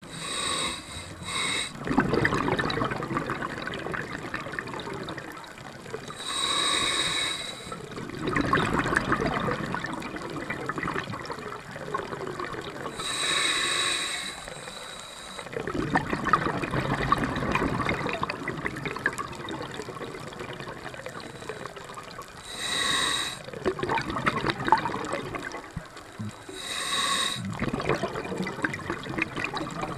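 Scuba regulator breathing underwater: a short hiss through the demand valve on each inhale, about five or six times, each followed by several seconds of bubbling exhale.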